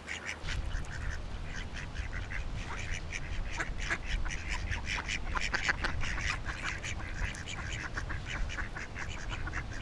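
Birds calling over and over in many short, sharp calls close together, over a steady low rumble.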